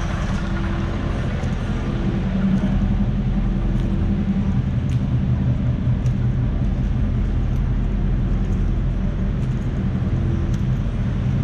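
Car engine running steadily at low revs, a low, even note that grows a little louder about two seconds in.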